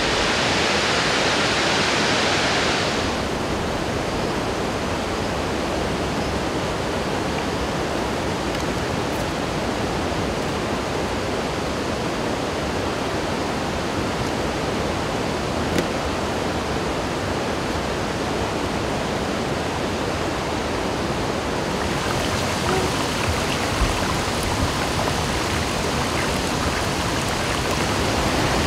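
Steady rush of water from a mountain waterfall and stream, hissier for the first three seconds, then an even, lower rush of flowing water.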